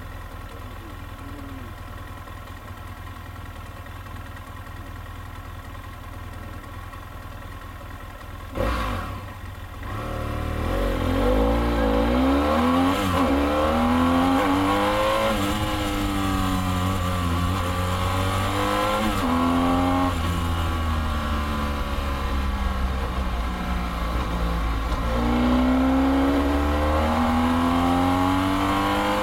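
BMW F800's parallel-twin engine idling, then a sudden thump about nine seconds in, after which the engine revs up and accelerates away. Its pitch climbs and drops back several times.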